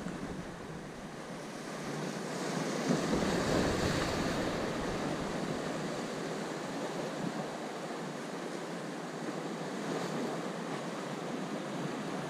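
Sea surf washing and breaking against the concrete armor blocks of a jetty, a steady rush of water that swells louder about two to four seconds in as a wave breaks.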